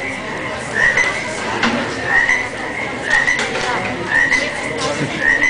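A short rising squeak or creak that repeats evenly about once a second.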